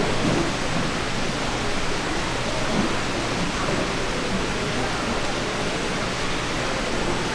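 Steady rushing background noise, even and unchanging throughout.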